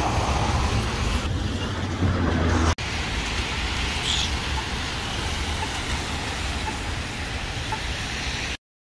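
Road traffic: cars driving on rain-wet pavement, a steady wash of tyre and engine noise with a low rumble. It breaks abruptly about three seconds in and cuts off suddenly near the end.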